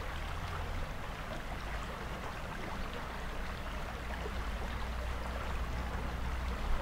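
Steady riverside ambience: an even hiss of flowing water with a constant low rumble underneath.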